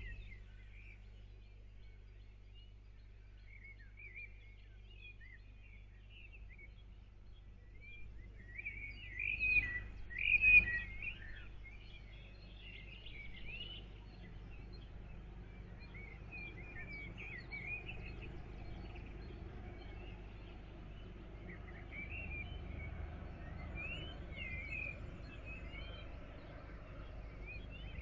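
Birds chirping and warbling in a dawn chorus: many short, quick calls, with a louder burst about ten seconds in, over a steady low hum.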